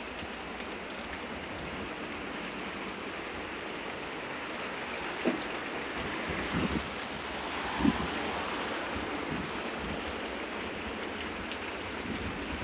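Steady rain falling, a constant hiss, with a few brief knocks about five, six and a half and eight seconds in.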